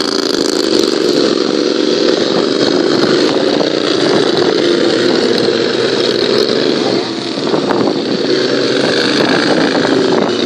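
Racing lawn mower engines running hard on a dirt track, a steady engine sound with a wavering pitch that dips briefly about seven seconds in.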